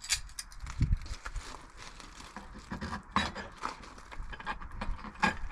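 Small metal lock hardware being handled: scattered light clicks and clinks as screws, washers and a plate are set in place.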